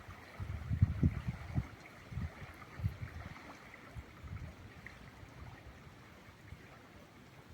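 Wind buffeting the microphone in irregular low gusts, strongest in the first couple of seconds and easing after, over a steady rushing hiss.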